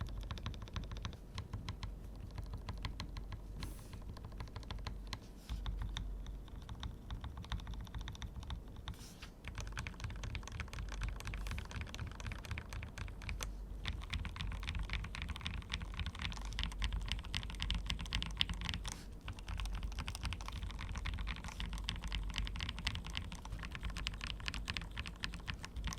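Typing on an Akko 5075S VIA mechanical keyboard whose switches and stabilizers have been hand-lubed, a fast, continuous run of key clicks with a few brief pauses.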